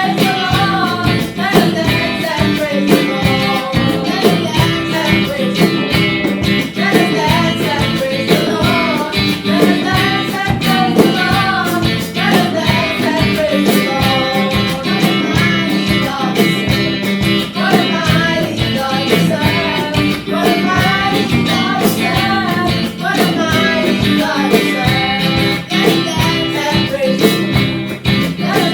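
A song with singing over guitar accompaniment and a steady beat.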